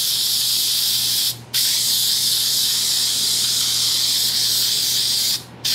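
Aerosol headliner spray adhesive hissing from the can's nozzle in long steady passes, stopping briefly twice: about a second and a half in and near the end, as the nozzle is let go.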